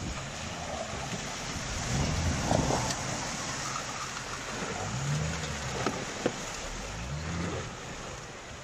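Volvo XC70 all-wheel-drive estate driving through deep mud and water, its engine revving up and falling back three times while mud and water slosh and splash around the tyres.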